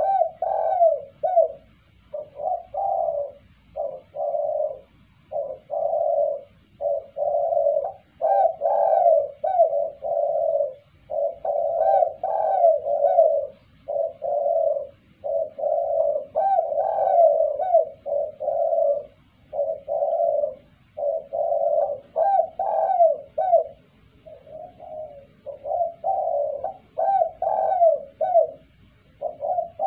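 Spotted dove cooing loudly and repeatedly: a long run of coo phrases with only short pauses between them.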